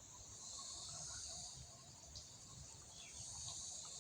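Faint, steady high-pitched chorus of insects, with a low rumble underneath and a small tick about two seconds in.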